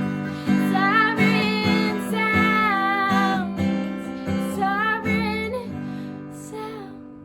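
Acoustic guitar strumming chords while a woman sings a bending melodic line over it. The voice stops about two thirds of the way through and the guitar rings out, fading as the song ends.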